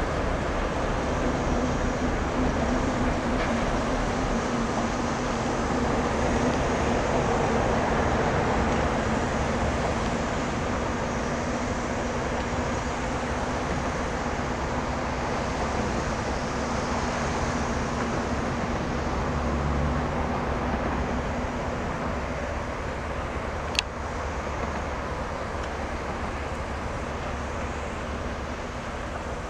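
A ChME3 diesel shunting locomotive's six-cylinder diesel engine runs steadily as it hauls a couple of wagons away, slowly growing fainter. A single sharp click comes near the end.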